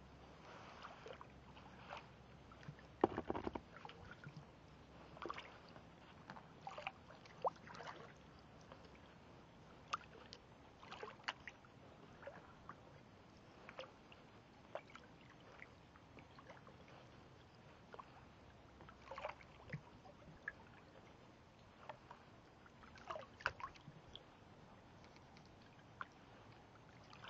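Kayak paddle strokes in calm lake water: the blades dip and drip, making soft, irregular splashes, with a louder splash about three seconds in.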